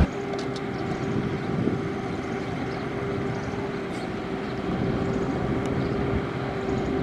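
Heavy construction machine's engine running steadily at a distance, a constant drone with a steady hum over it.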